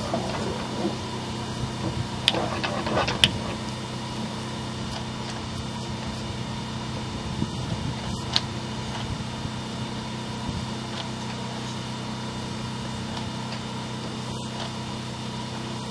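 Steady machine hum, with a few light clicks and knocks about two to three seconds in and again around eight seconds.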